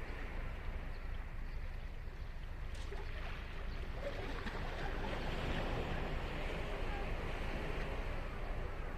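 Ocean surf: waves breaking and washing up the beach, a steady rush that swells louder about halfway through, over a low rumble.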